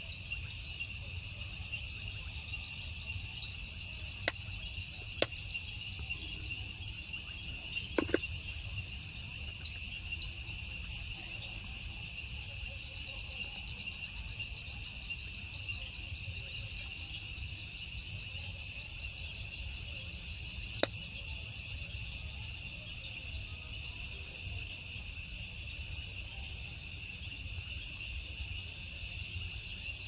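Steady night chorus of crickets chirping continuously in two high-pitched bands. A few brief sharp clicks are scattered through it and stand out as the loudest sounds.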